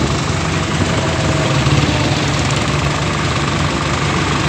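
Tractor diesel engine running steadily on the road, a dense low rumble with road noise over it.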